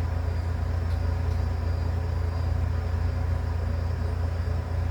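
A steady low hum with faint steady higher tones over it, unchanging throughout.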